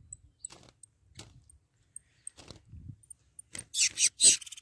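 Rustling and light clicks from handling a wooden-and-wire cage trap as a captured finch is put inside, with a louder burst of rustling about three and a half seconds in. Faint, very high, short chirps repeat over it.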